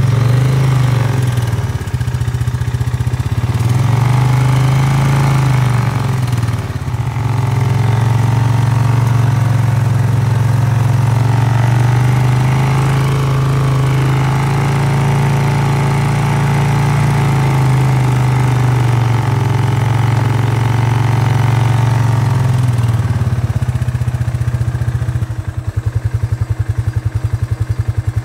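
ATV engine running while riding a woodland trail, its pitch rising and falling with speed, then dropping to a pulsing idle near the end.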